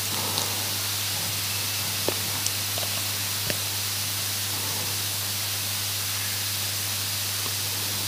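Steady hiss of a microphone's recording noise with a low electrical hum under it, and a few faint clicks in the first half, in a pause between recited verses.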